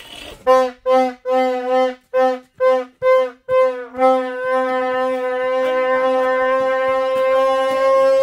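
Green plastic toy horn blown in a string of about eight short toots, two to three a second, then held as one long steady note.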